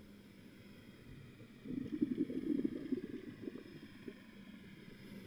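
Muffled underwater sound picked up through a camera's waterproof housing: a low steady hum. A louder burst of low crackly rumbling comes in just under two seconds in and lasts more than a second before dying back.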